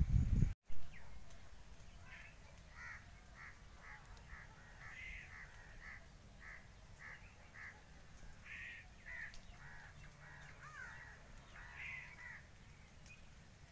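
Birds calling in a run of short calls, about two a second, a few of them sliding down in pitch. A brief low rumble on the microphone at the very start cuts off abruptly.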